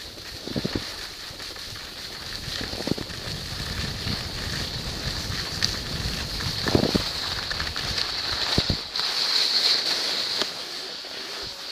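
Skis hissing and scraping over groomed snow during a steady downhill run, with wind rumbling on the camera's microphone and a few soft thumps. Near the end the low wind rumble drops away while the snow hiss goes on.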